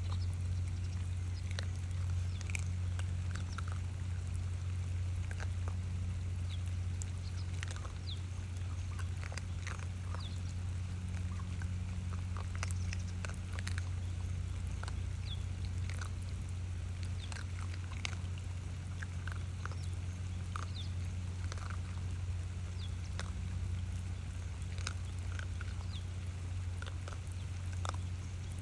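Raccoon dogs feeding: scattered short clicks and small brief squeaky sounds throughout, over a steady low hum.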